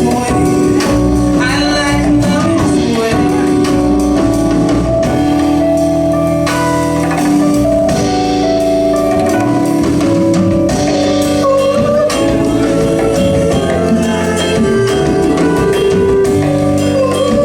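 Live band of electric keyboard, bass guitar, drum kit and hand percussion playing a mid-tempo pop/R&B ballad, with sustained keyboard chords over a steady groove.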